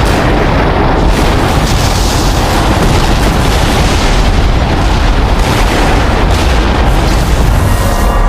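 A long, loud explosive rumble from film sound effects, starting suddenly and running on as one dense, heavy noise with no clear pitch.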